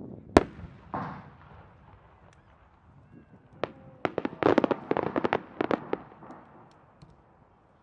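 Aerial fireworks bursting: one sharp bang, the loudest, about half a second in, then a duller boom. From about three and a half seconds in, a quick volley of many sharp bangs goes off as a cluster of small bursts explodes, dying away by about six seconds.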